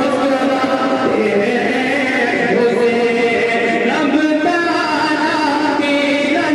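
A man's voice chanting an Urdu manqabat, a devotional poem in praise of Imam Husain, drawn out in long held melodic notes that bend slowly in pitch, amplified through a microphone.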